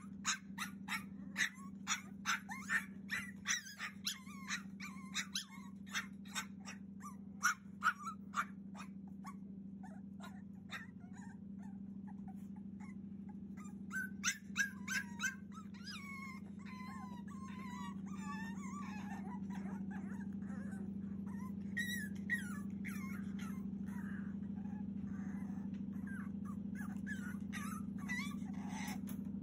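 Cavalier King Charles Spaniel puppy crying to be let out of its pen: rapid sharp yelps, about two a second, for the first several seconds, then, after a short lull and a few more yelps, drawn-out whines and whimpers that waver up and down in pitch. A steady low hum runs underneath.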